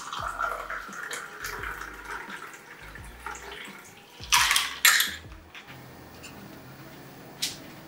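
Margarita poured from a stainless steel cocktail shaker into a glass tumbler, a steady trickle of liquid. About four seconds in come two short, louder clatters, and there is a lighter click near the end.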